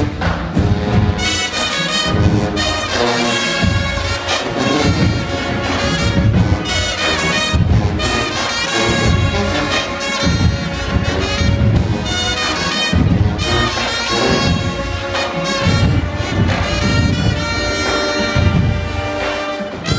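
High school marching band playing: brass horns carrying the tune over steady drum beats from the drumline.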